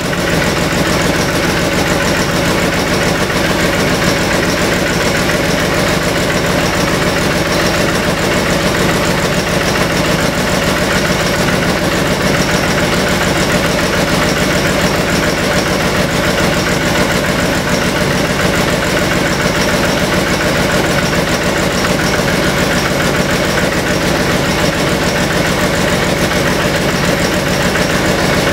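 Starting-air compressor for a large engine running steadily, filling the compressed-air supply used to start the engine.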